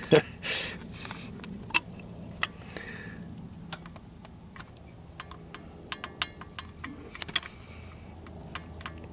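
Light, irregular metallic clicks and taps from the exhaust valve rocker gear of a Honda TRX300EX single-cylinder engine, worked by hand with a small wrench at the adjuster to check the valve clearance.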